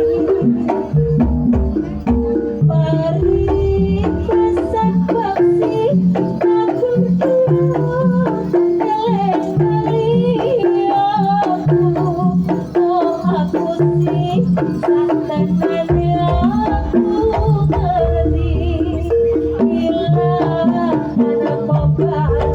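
Live Javanese jaranan ensemble music: hand drums beating a steady, busy rhythm under repeating low pitched notes and a wavering, ornamented melody line.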